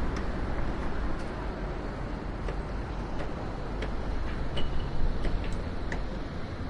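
Urban construction-site ambience: a steady low rumble of city traffic with scattered light clicks and taps throughout, and a brief high squeak about four and a half seconds in.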